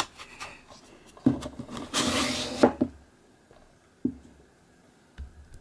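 Cardboard slipcover sliding over a plastic DVD case with a short rubbing scrape, among a few light knocks as the case is handled.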